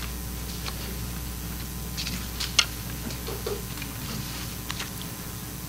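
Quiet room with a steady low hum and scattered light clicks and taps. One sharper click comes about two and a half seconds in.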